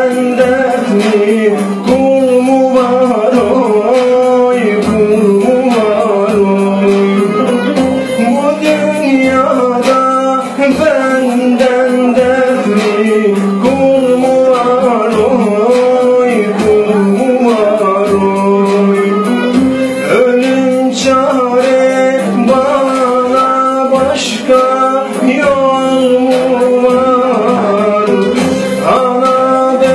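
A man singing a Turkish folk song over electronic keyboard accompaniment. A steady low drone runs under a wavering, ornamented melody.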